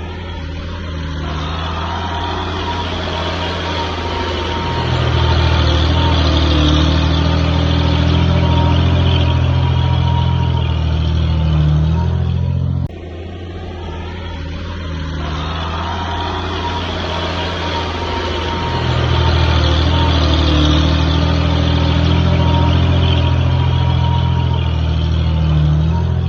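Bulldozer's diesel engine running steadily, growing louder and heavier about five seconds in as it takes load, with a faint whine above the engine note. The same stretch of engine sound then repeats, with a sudden drop and the same rise again.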